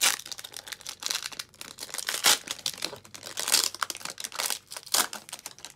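Foil wrapper of a Panini Chronicles basketball card pack being torn open and crinkled, with several sharp, loud crackles as it is pulled apart.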